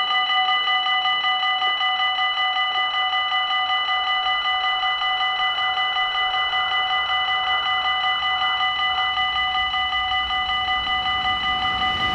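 Dutch level crossing's electronic warning bells ringing in a rapid, even, unbroken pulse, the signal that a train is approaching and the barriers are down. An approaching train's noise rises faintly under the bells near the end.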